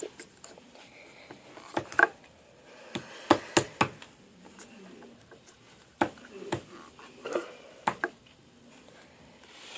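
Scattered light taps and clicks of hands working Play-Doh on a tabletop, about a dozen, irregularly spaced.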